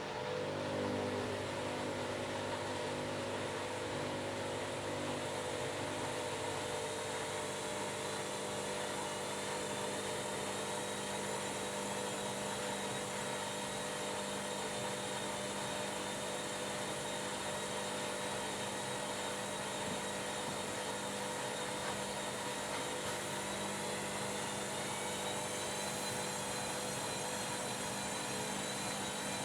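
Washing machine running with its motor whining steadily, the drum turning fast, as in a spin; about three-quarters of the way through a high whine starts rising in pitch as the motor speeds up.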